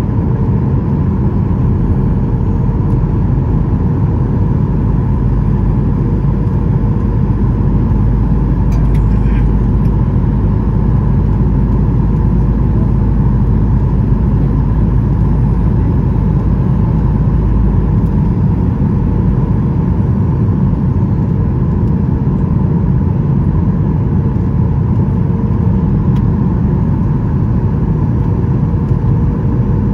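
Steady cabin noise of a Boeing 737-800 on approach: the CFM56-7B turbofans and the airflow make a constant deep rumble, with a steady hum of two tones on top. The deepest part of the rumble eases slightly about two-thirds of the way through.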